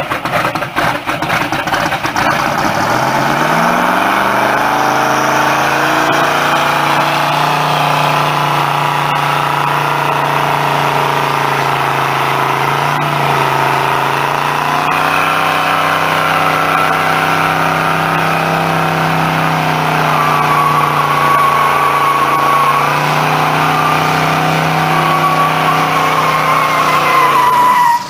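Hot rod's supercharged engine running unevenly at first, then revving up steeply and held at high revs through a long burnout. The spinning rear tyre adds a wavering squeal over the engine in the later part. The sound cuts off abruptly at the end.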